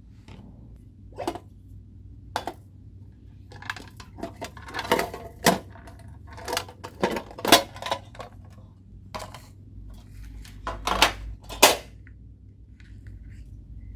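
Homemade slime being pressed, folded and stretched by hand, giving irregular sharp pops and clicks, thickest in the middle and again near the end.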